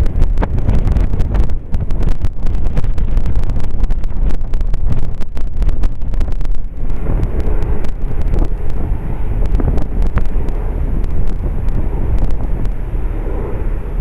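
Strong wind buffeting the camera microphone: a loud, steady rumble broken by frequent sharp pops from the gusts.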